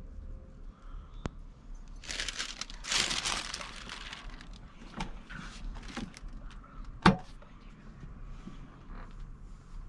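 A thin paper cover sheet crinkling as it is laid over a sweater on a heat press. About seven seconds in comes one sharp clack as the Siser clamshell heat press is pulled shut, with a few lighter clicks around it.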